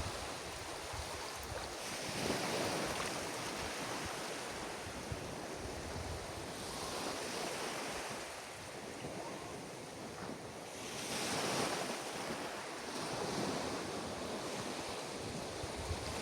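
Ocean surf breaking and washing onto a beach, a steady rush that swells with each wave every few seconds.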